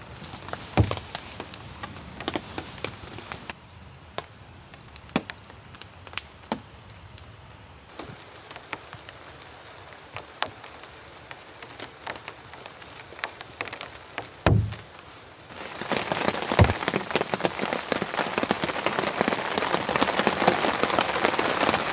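Rain falling, with scattered sharp drips and ticks and a few dull low thumps. About two-thirds of the way through, the rain suddenly becomes much louder and denser and stays that way.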